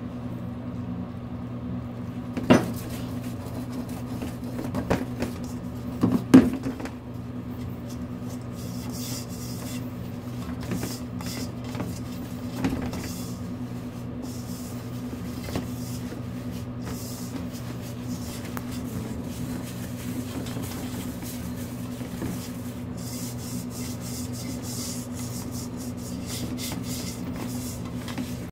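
Hands mixing and rubbing buckwheat flour in a stainless steel bowl, a soft scratchy rubbing, with a few knocks against the bowl in the first seven seconds, the loudest about six seconds in. A steady low electrical hum runs underneath.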